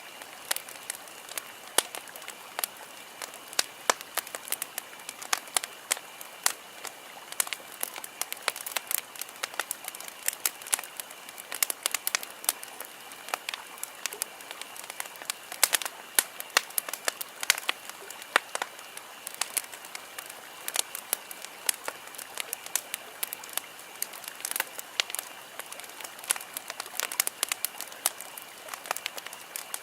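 Wood campfire crackling: a steady hiss of burning with frequent irregular sharp pops and snaps.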